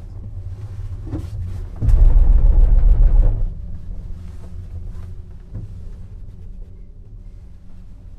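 Gondola lift cabin running down the haul rope with a steady low rumble. About two seconds in, the cabin's carriage passes over a tower's roller battery: a loud rumble lasting about a second and a half, with a few knocks before and after it.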